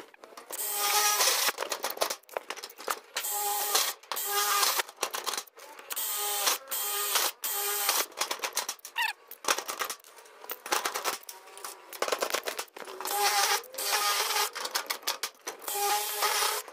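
A cordless drill whines in short bursts as it drills holes through sheet-metal flashing, each burst stopping abruptly. Between the bursts a hand rivet gun clicks as it sets pop rivets along the seams.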